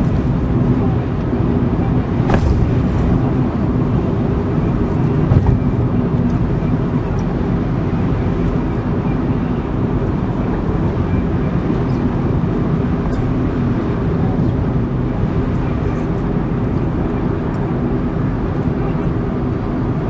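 Steady road and engine noise of a car driving on a city road, heard from inside the cabin, with a light knock about two seconds in.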